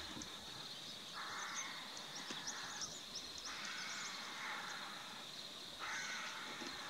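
Outdoor wild ambience: a steady high drone with scattered short chirps, and three spells of harsh, rasping noise, each about a second and a half long.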